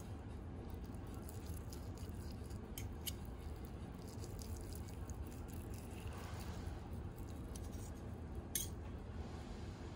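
A few light clicks and clinks, the loudest near the end, over a steady low hum.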